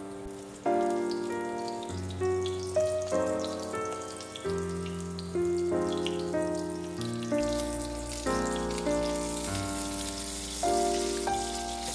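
Background music with a melody of sharply struck, decaying notes, over a panko-breaded beef patty (menchi katsu) sizzling in shallow oil. The sizzle grows louder in the second half.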